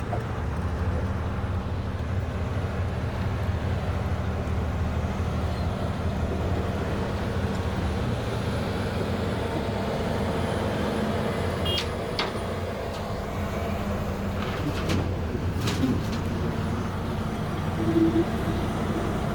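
Heavy diesel truck engine running steadily. A few short sharp clicks or knocks come in the second half.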